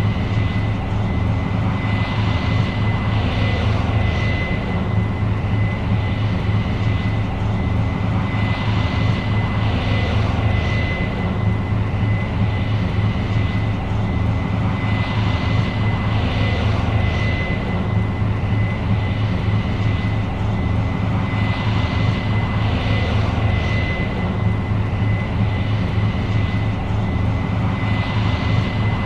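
New Holland CR 7.90 combine harvester running steadily while harvesting corn: a deep engine drone with a constant high whine over it, and a hiss that swells and fades every six or seven seconds.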